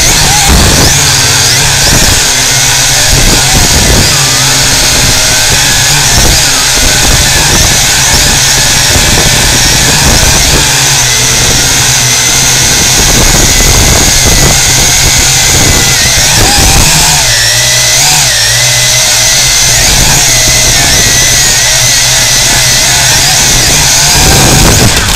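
Quadcopter drone's electric motors and propellers whining loud and close from the onboard camera, the pitch wavering up and down with the throttle. It cuts off suddenly at the end.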